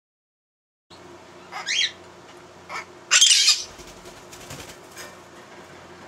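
Blue-crowned conure calling: a short rising call, a brief call about a second later, then a loud, harsh squawk. The bird is agitated and wants out of its cage.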